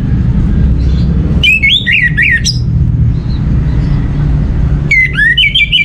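Orange-headed thrush singing: a quick warbled phrase of gliding whistles about a second and a half in, then a rapid run of repeated notes starting near the end, over a steady low rumble.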